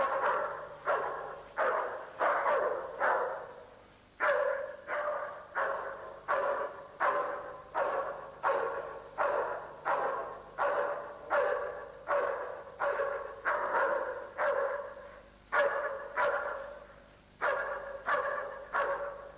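A dog barks in a steady, rhythmic series, roughly one bark every three-quarters of a second, with a few short breaks.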